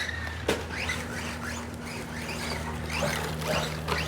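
Electric motor of a 1/8-scale-type RC rally car on a 3S battery whining in short rising bursts, a few a second, as the throttle is blipped through a tight course. One sharp knock comes about half a second in, over a steady low hum.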